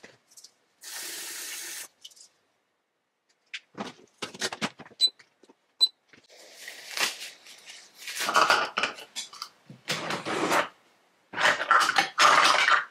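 Kitchen sink work: a short run of tap water, then a pot and water being handled and rinsed, with clatters and splashes that come more often toward the end. Two short high beeps sound in the middle.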